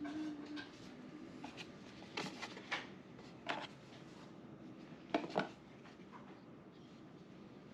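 Scattered handling clicks and knocks, about half a dozen, from a GoPro magnetic swivel clip and mount being worked by hand, with a close pair a little after five seconds in.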